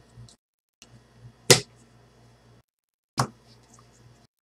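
Two sharp taps about a second and a half apart from a stack of trading cards being handled on a table, the first the louder, over a faint low hum.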